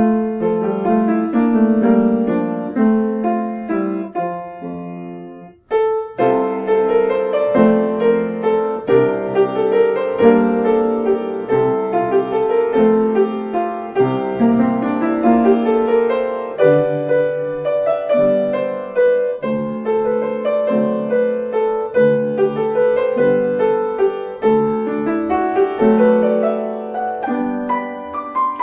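Solo piano playing a slow, gentle piece. The notes fade after each is struck, and the music breaks off briefly about five and a half seconds in before resuming.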